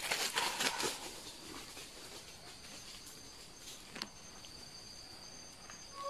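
Rustling steps through dry leaf litter for about the first second, then a steady, high-pitched drone of forest insects, with one sharp click about four seconds in.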